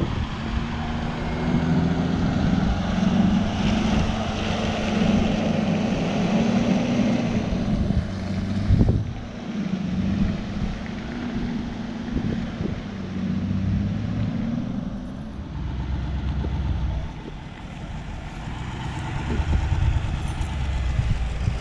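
Mercedes G-Class off-road vehicle engines running as the 4x4s drive slowly across a grassy field, a steady low hum that rises and falls.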